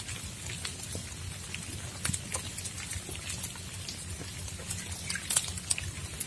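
Rain falling, with single drops ticking irregularly over a steady low rumble.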